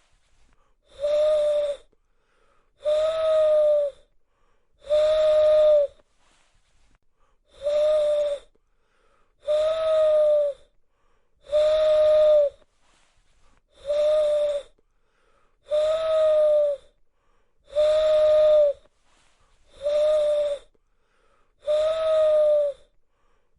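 Owl call sound effect: a single steady-pitched call with a hiss to it, about a second long, repeated at even spacing roughly every two seconds, twelve times.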